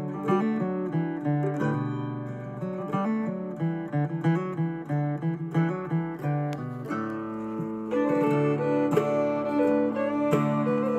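Background music led by a plucked acoustic guitar, growing fuller and a little louder about eight seconds in.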